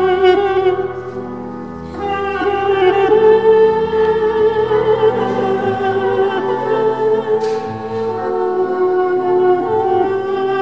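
Duduk playing a slow elegy in long held, slightly wavering notes over a sustained piano accompaniment, with a short break in the line about a second in. A brief hiss comes about halfway through.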